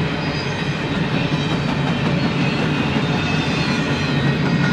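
Empty intermodal well cars and spine cars of a freight train rolling past, steel wheels running on the rails in a steady, continuous noise.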